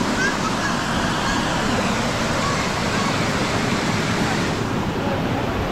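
Shallow, fast river rushing over rocks and rapids: a steady, even wash of water noise.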